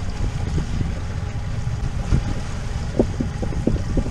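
Boat motor running steadily at a slow troll of about 2 knots, a low rumble under wind on the microphone, with a few brief knocks between two and four seconds in.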